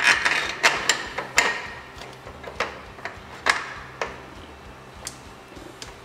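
Irregular sharp metallic clicks and taps, about eight in all, the loudest near the start: metal parts and tools being handled while the tensioner screw is fitted into a snowmobile chain case.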